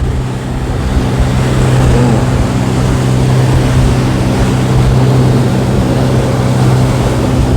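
Motorboat engine running at a steady drone while under way, with a rough low wind rumble on the microphone and water noise from the hull in a light chop.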